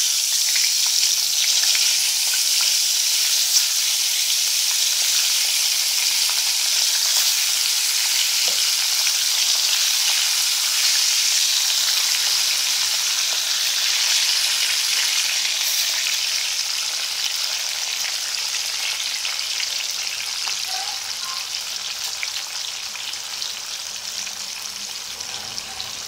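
Masala-stuffed green chillies shallow-frying in a little oil in a kadhai: a steady sizzle that slowly fades over the second half.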